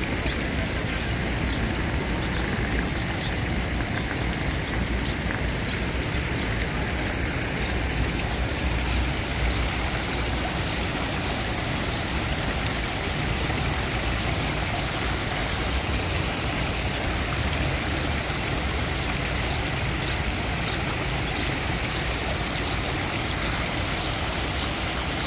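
Steady splashing of water falling from a tiered stone fountain, mixed with the running of city traffic.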